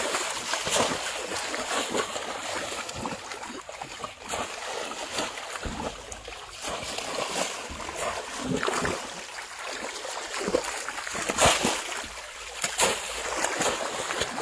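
Irregular splashing and sloshing of shallow water as people wade, kick and lunge through it by hand and push a bamboo basket fish trap down into it, with one sharper splash late on.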